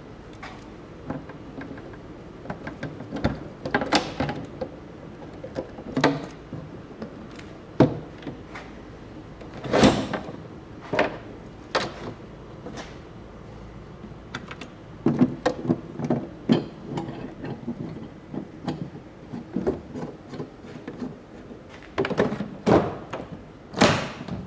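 A series of irregular knocks and clunks, like hard objects being handled and set down, with several louder thuds spread through.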